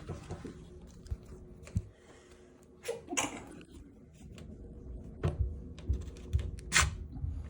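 Small clicks, taps and knocks of closet-door hardware being handled as the door's top pivot bracket is worked down to free the door, with a few louder knocks about three, five and seven seconds in.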